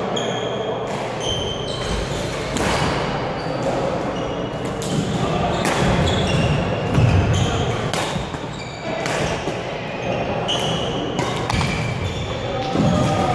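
Badminton rackets striking the shuttlecock in a rally, a string of sharp cracks at uneven intervals, with court shoes squeaking on the wooden floor, in an echoing gym.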